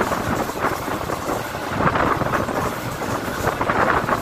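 Wind noise on the microphone over the running noise of a moving Mumbai suburban electric local train, heard from its open doorway. The rush swells and eases unevenly.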